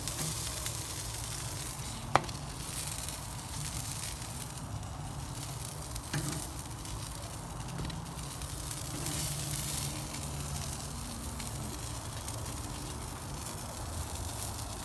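Chicken sizzling on a wood-fired grill, a steady hiss. A sharp click about two seconds in is the loudest moment, with a smaller click around six seconds.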